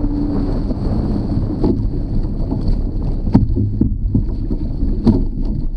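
Wind buffeting the microphone over water rushing along the hulls of a White Formula Whisper sailing catamaran, with three sharp slaps of water against the hull, the loudest a little past the middle. A thin, steady high whine runs underneath.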